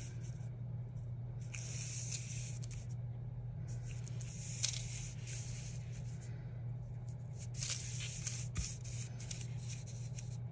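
Clear plastic sticker sheet rustling and sliding over a paper planner page, in several bouts of soft crinkling, over a steady low hum.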